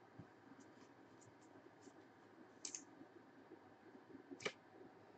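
Near silence with faint clicks and slides of glossy Panini Prizm trading cards being flipped through by hand, with a sharper click about two and a half seconds in and another a little after four seconds.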